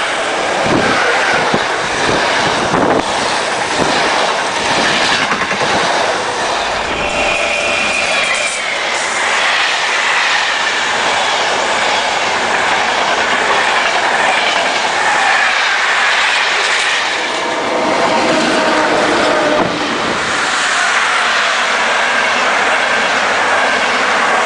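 Freight and passenger trains passing at speed: a continuous rumble and clatter of wheels on the rails, with high squealing tones from the wheels that come and go.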